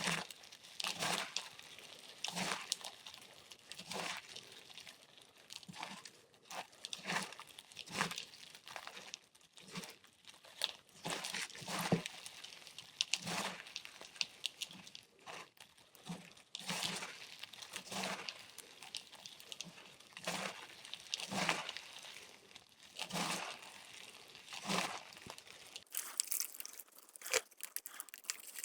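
Bear-shaped blocks of gym chalk being crushed, giving a series of dry, crumbly crunches about once every second or so. In the last few seconds the crunches turn thinner and higher.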